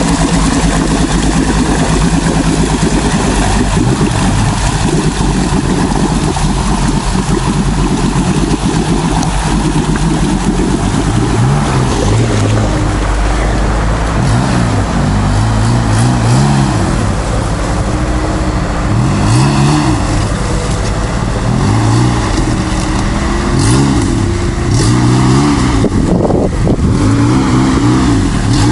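Off-road 4x4's engine pulling through a mud puddle: a steady drone at first, then revved in repeated surges, rising and falling about every second and a half to two seconds from roughly a third of the way in.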